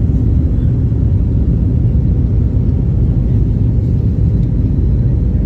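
Steady low rumble of jet engines and rushing air heard inside an airliner cabin, shortly after takeoff while the plane is still low.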